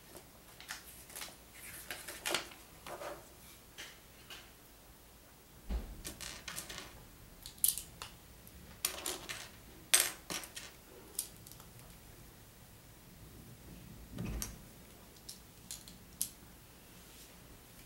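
Plastic Lego bricks clicking and rattling irregularly as pieces are handled and pressed together, with a dull thump twice along the way.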